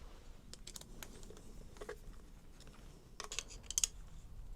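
Faint clicks and light scraping of small metal hand tools at the valve adjusters of a motorcycle engine, with a brief run of sharper clicks about three seconds in.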